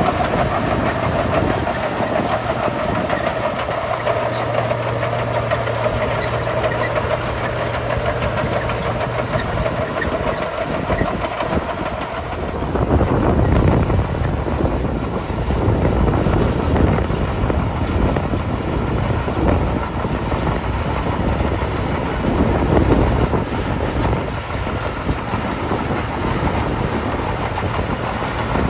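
Komatsu D41P bulldozer's diesel engine running under work; from about twelve seconds in the sound gets louder and rumbles in uneven surges, as the engine takes on more load.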